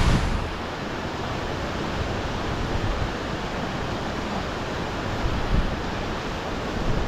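Steady rushing noise, with a few short low bumps near the start and again around five and a half seconds in.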